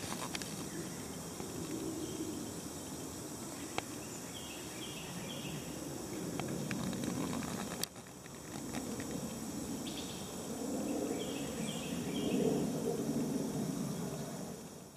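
Outdoor summer insect sound: a steady high trill with a low hum that swells and fades in waves, and two short runs of small chirps. There is a click with a brief drop about halfway through.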